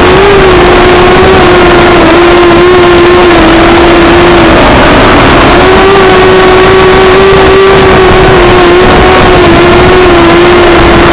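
Walkera Rodeo 150 racing quadcopter's brushless motors whining steadily under a heavy hiss of analog FPV-link noise. The pitch sags about halfway through and then comes back up as the throttle changes.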